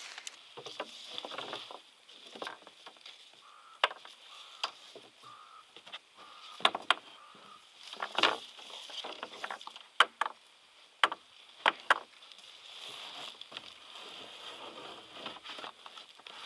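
Irregular sharp clicks and knocks with rustling between them, as of fishing gear being handled and packed away.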